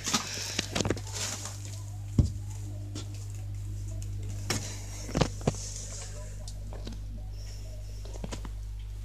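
A cat shifting and rolling on a tiled floor while being stroked: soft rustles in the first second or so and scattered light knocks, the sharpest about two seconds in, over a steady low hum.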